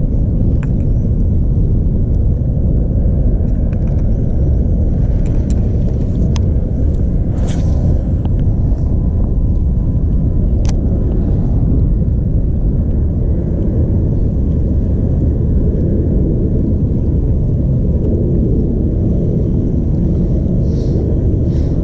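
Wind buffeting the camera's microphone, a steady loud low rumble, with a few sharp clicks scattered through it.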